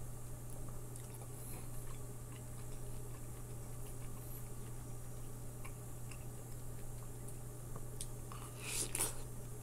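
Mouth chewing soft, juicy melon flesh, with small wet clicks. Near the end comes one louder, juicy bite into a slice of orange-fleshed melon. A steady low hum runs underneath.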